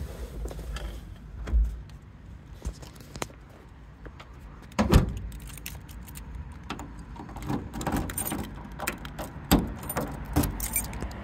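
Getting out of a Piaggio Ape 50: the small cab door shuts with a knock about five seconds in. Then a key jangles and clicks in the door lock as the door is locked.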